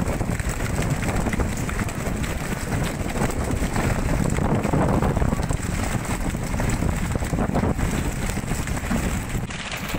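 Steady wind buffeting the microphone over the running noise of a fishing boat under way at sea.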